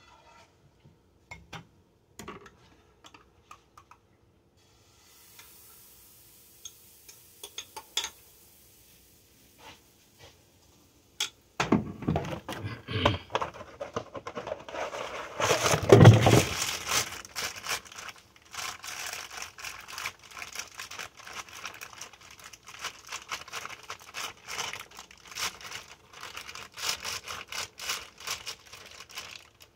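Kitchen handling sounds at the stove: sparse clicks, then a sudden run of crackling, rustling and light clatter about a third of the way in, with a loud knock near the middle.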